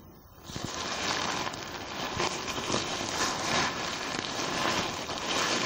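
Polyester ripstop tent fly rustling as it is handled and lifted, a busy crinkling of stiff coated fabric that starts about half a second in and carries on.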